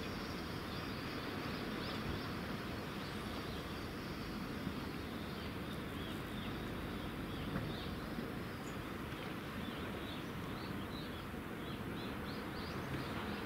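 Steady outdoor background noise with a high, steady insect drone through the first half. Short, high bird chirps come repeatedly in the second half.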